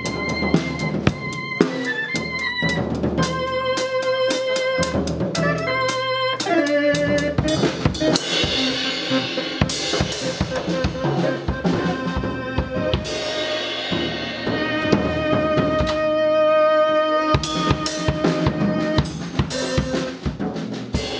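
Instrumental band music: a drum kit playing steadily with snare and bass drum, under held pitched notes, with no vocals.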